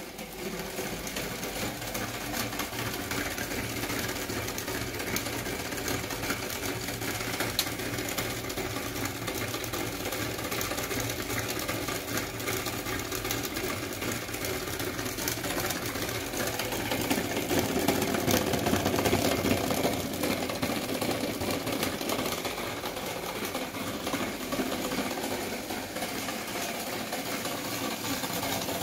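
Homemade Bedini-style pulse motor generator running steadily with a fast mechanical whirr while it charges a lead-acid car battery. It gets a little louder about two-thirds of the way through.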